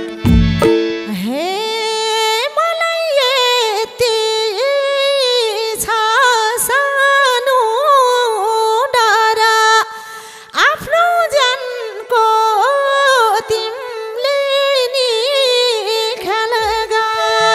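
Instrumental break in a live Nepali dohori song: one melody instrument plays an ornamented tune full of pitch slides, with no drums or bass under it. Near the very end the drums and bass come back in.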